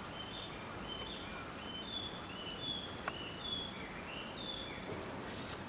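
A small songbird singing a run of short high notes, about two a second, alternating between two pitches, over steady outdoor background noise. A single sharp click about three seconds in.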